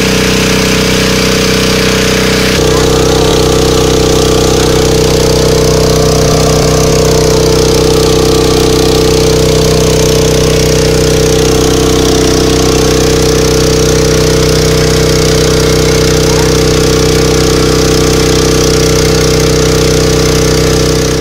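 A motor-driven water pump running steadily, pumping the water out of a stretch of river. Its tone shifts and it gets a little louder about two and a half seconds in.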